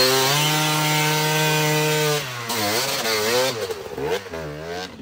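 Dirt bike engine revved hard and held at high revs for about two seconds, then revved up and down repeatedly as the bike is driven through mud and water with the rear wheel spinning.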